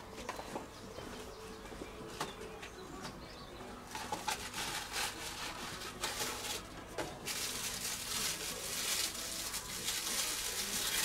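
Crinkling, rustling packaging being handled and opened by hand, starting about four seconds in and growing busier toward the end.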